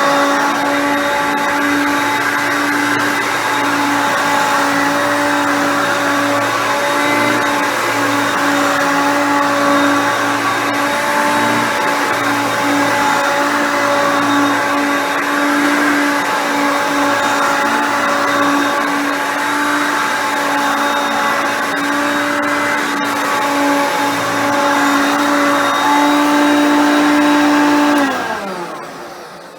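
Hoover Concept Two upright vacuum cleaner running steadily, its 5.6-amp motor and brush roll giving a constant pitched tone. About 28 seconds in it is switched off and the pitch slides down as it winds down.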